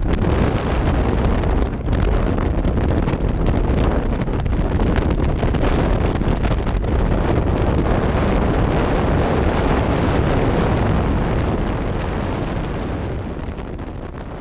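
Freefall air rushing past and buffeting the camera microphone: a loud, steady roar of wind that fades away over the last few seconds.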